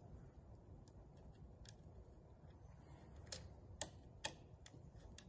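Faint metallic ticks of a hex key working a small bolt on a 3D printer's printhead mounting plate, with three sharper clicks about half a second apart a little past the middle.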